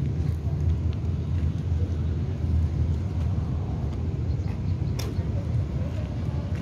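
Steady low rumble throughout, with one sharp click about five seconds in.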